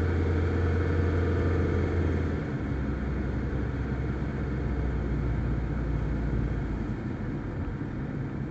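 Car engine and road noise heard from inside the cabin while driving. The engine hum steps down to a lower pitch and gets a little quieter about two seconds in.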